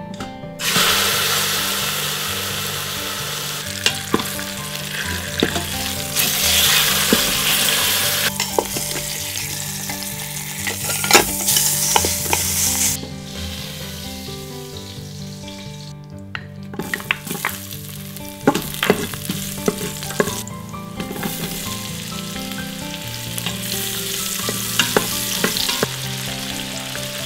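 Pork shoulder searing in hot oil in an Instant Pot's stainless steel inner pot, sizzling loudly, with tongs clicking against the metal now and then. About 13 seconds in the sizzle drops away, then returns more softly as onions sauté in the pot.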